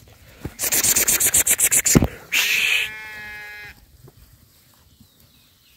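A rapid run of loud noisy pulses, about ten a second, then a lamb bleats once, a short steady call about three seconds in.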